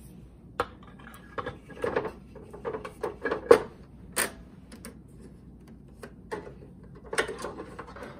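Irregular clicks and knocks of a BSR record changer being handled, as its platter is set back onto the spindle. The knocks come thickest in the first four seconds and again near the end.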